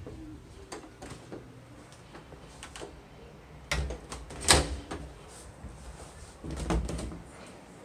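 A few clicks and knocks with two heavier clunks, the loudest about four and a half seconds in and another near seven seconds.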